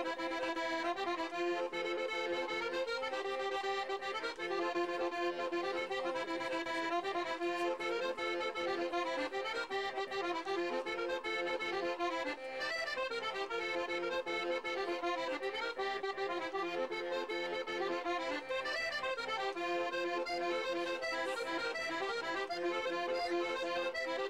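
Accordion playing a folk tune without singing: a quick melody over steady held low notes, running without a break.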